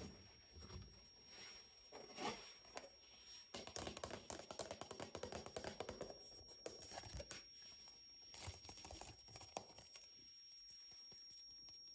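Faint rustling and crinkling handling noises with many small clicks and scratches, busiest in the middle and fading near the end.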